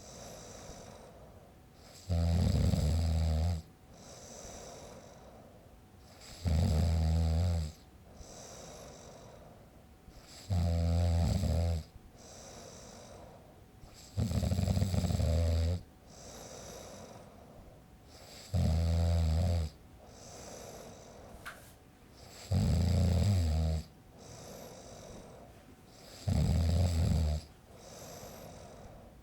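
A man snoring steadily: a loud, rattling snore about every four seconds, seven in all, with quieter breathing between them.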